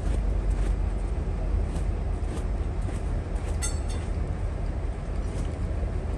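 A hand broom brushing dust off a fabric bus seat cushion in short, irregular strokes over a steady low rumble. A single metallic clink about three and a half seconds in.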